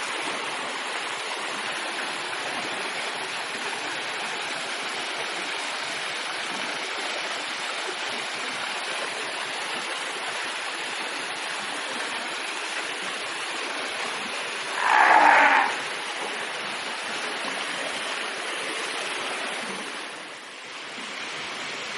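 Steady rush of running water in a fur seal pool, with one short, louder sound about two-thirds of the way through.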